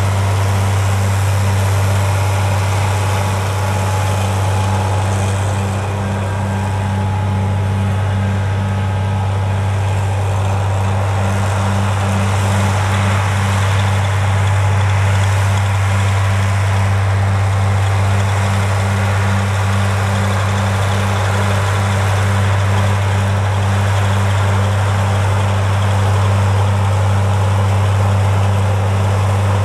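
White 2-135 Field Boss tractor's Caterpillar 3208 V8 diesel engine running steadily while the tractor drives through the field. It gives a deep constant drone with an even pulsing beat.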